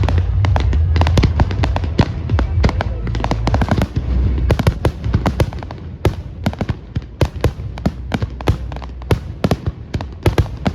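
Fireworks display: deep booms of bursting shells under a dense, rapid crackle of sharp pops, thinning to more separate pops in the second half.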